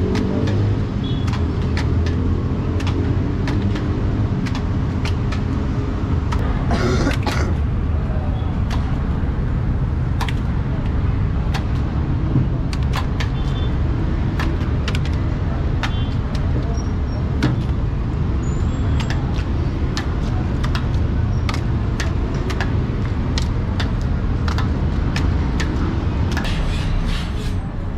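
Eggs cracked one after another on the rim of a large karahi of hot fat, a string of short sharp cracks, with the eggs sizzling and bubbling as they hit the fat. Under it runs a steady low rumble.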